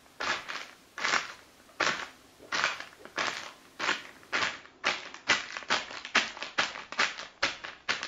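Homemade Foley effect of footsteps crunching through snow, made with a household object. The steps go at a walking pace, then quicken to about three a second from about halfway.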